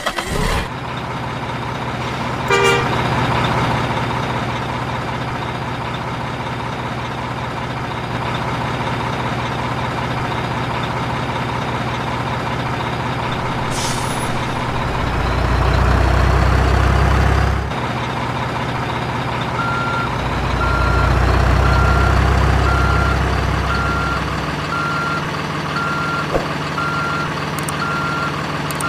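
Truck engine running with a steady drone, its low rumble swelling twice in the middle. About two-thirds in, a reversing alarm starts beeping about once a second.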